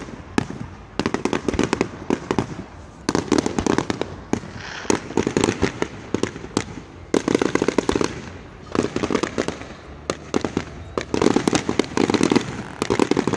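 Fireworks going off in rapid crackling volleys: dense runs of sharp pops, each run about a second long, coming every one to two seconds.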